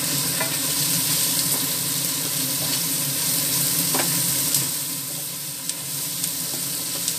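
Chopped onions, garlic, cashews and green chillies sizzling steadily as they fry in oil in a nonstick pan, stirred with a wooden spatula, with a few taps of the spatula against the pan.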